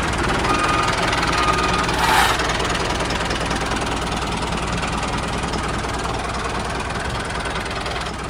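Tractor engine sound running steadily with a fast, even knock, the engine noise that goes with a toy Massey Ferguson 385 tractor as it drives.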